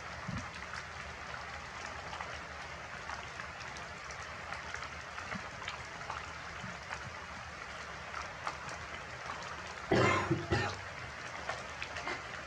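Steady rain falling, with scattered single drops ticking. About ten seconds in, one short, louder rasping sound.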